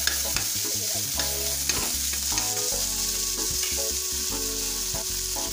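Onions and tomatoes frying in hot oil in an aluminium kadai, with a steady high sizzle. A spatula stirs and scrapes against the pan, ticking mostly in the first half.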